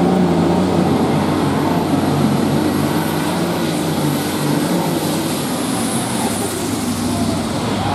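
John Deere light pro stock pulling tractor's turbocharged diesel running hard under load as it drags the pulling sled, its engine note wavering. A high turbo whistle falls away about six and a half seconds in.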